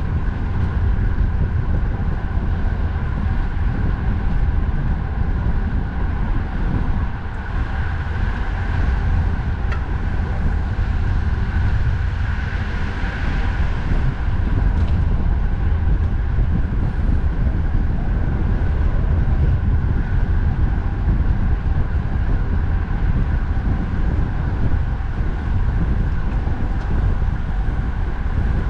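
Steady wind rumble on the microphone of a moving bicycle, mixed with the continuous noise of motor traffic, with a few faint steady hums over the top.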